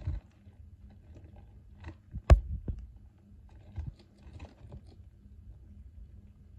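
Richardson's ground squirrel nibbling and chewing a cabbage leaf, making soft, irregular crunching and clicking. There is one sharp, loud click a little over two seconds in.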